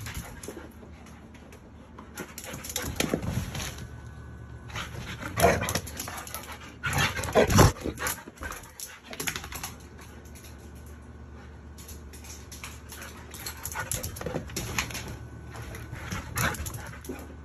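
A dog rummaging and playing rough on a bed among loose papers: irregular rustling and crumpling of paper and bedding, loudest about five and a half and seven and a half seconds in.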